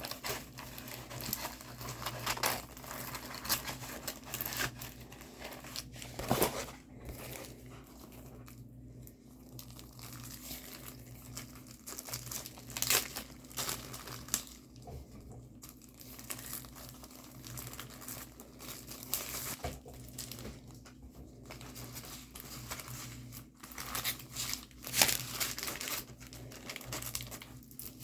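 Plastic packaging of a diamond painting kit crinkling and rustling in irregular bursts as it is handled.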